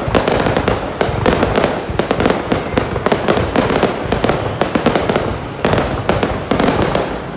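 Aerial fireworks display going off close by: a dense, continuous string of bangs and crackles, many bursts every second.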